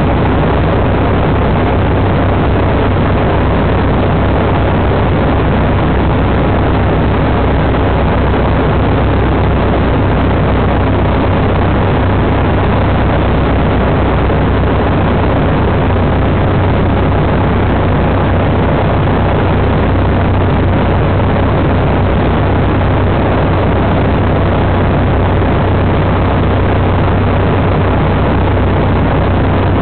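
A Cessna light aircraft's piston engine and propeller droning steadily at cruise, heard from inside the cabin as a loud, unchanging noise with a deep low hum underneath.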